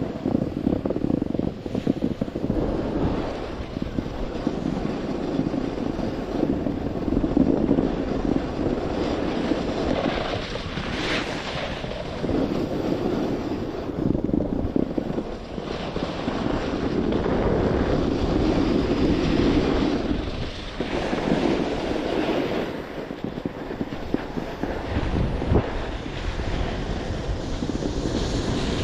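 Skis sliding and scraping over snow, swelling and fading every few seconds, with wind buffeting the microphone.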